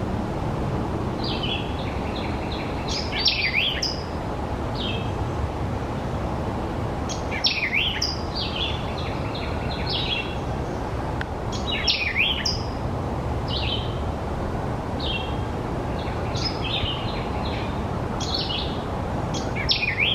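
White-eyed vireo calling: short phrases of sharp chirpy notes and quick swooping slurs, repeated about every four seconds, over a steady low background rumble.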